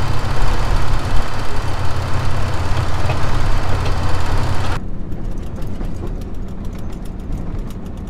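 Vehicle engine idling under heavy wind noise on the microphone. About five seconds in it gives way to the quieter, steadier hum of a ute driving along a dirt road, with a scatter of light ticks.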